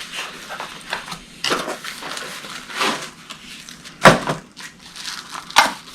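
Metal camp cookware clinking and knocking as nested pieces are handled and pulled apart, with rustling packaging between. The two sharpest knocks come about four and five and a half seconds in.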